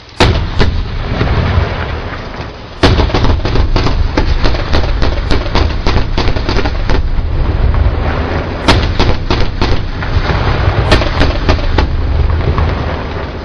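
Bradley fighting vehicle's 25mm Bushmaster chain gun firing: one sharp report right at the start, then from about three seconds in a long run of sharp cracks over a continuous heavy rumble, tailing off near the end.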